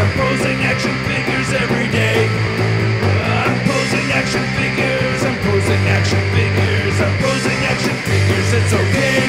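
Punk-rock style background music with a steady drum beat and a bass line.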